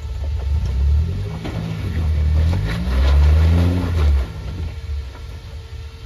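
Rock-crawling compact SUV's engine revving in bursts as it climbs a rock pile. The pitch climbs from about two and a half seconds in and drops back suddenly about four seconds in, with scattered cracks and knocks of tyres on rock.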